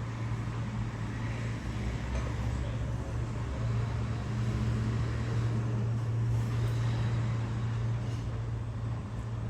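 Steady low hum with a rumbling noise underneath, unbroken and even throughout.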